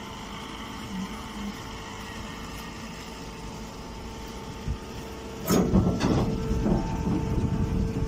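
Straw baler's motor running with a steady hum. From about five and a half seconds in, louder irregular rustling and knocking of straw being handled and fed at the baler's loading opening joins it.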